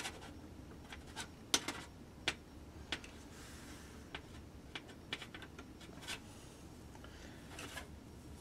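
Soldering iron tip being wiped and poked in a damp-sponge tip cleaner: irregular light clicks and scratches as the tip works against the sponge and its holder.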